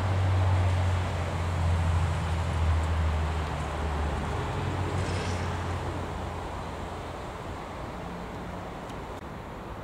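Freightliner Class 66 diesel locomotive running light, its two-stroke V12 diesel giving a low, steady drone that fades away as it pulls off.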